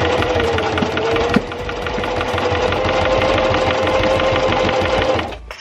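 Singer electric sewing machine stitching at speed: rapid, even needle strokes over the steady hum of its motor, whose pitch dips slightly at times. A single sharp click comes about a second and a half in, and the machine stops near the end.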